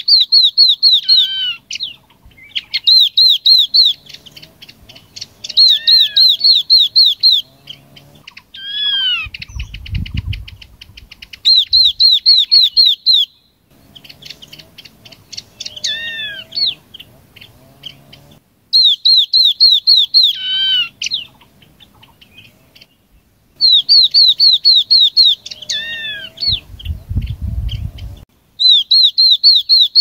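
Yellow-eyed babbler song played as a flock-calling lure: loud phrases of about eight rapid high notes in quick succession, repeated every few seconds, with downward-sliding whistled notes between the phrases.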